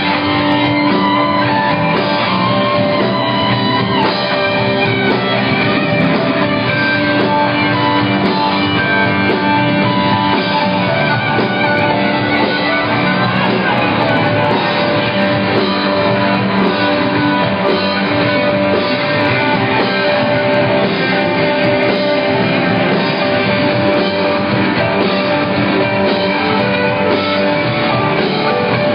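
Live rock band playing loud and steady, with guitars to the fore, heard from among the audience in a club.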